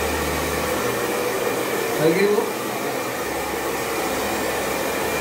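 Handheld hair dryer blowing steadily while a man's hair is blow-dried and styled. About two seconds in there is a brief rising sound.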